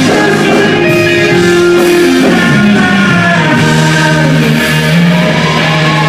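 Live rock band playing: electric guitars, bass and drums, with a lead singer's voice over them.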